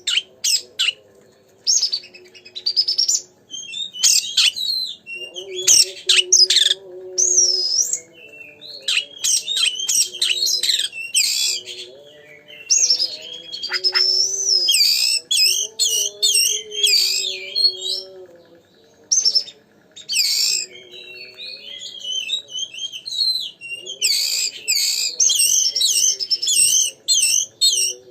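Oriental magpie-robin (kacer) in full, continuous 'gacor' song: rapid runs of varied whistles, chirps and harsher notes, broken by short pauses. This is the lure song meant to rouse other magpie-robins.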